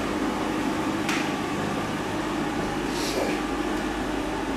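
Steady, even hiss with a low hum running under it. A short sharp tick comes about a second in, and a softer high swish about three seconds in.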